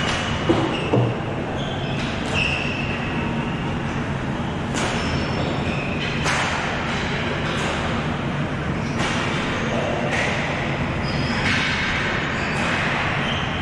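Ball hockey play over a steady rumble: sharp knocks of sticks and ball every second or two, with a few short high squeaks in between.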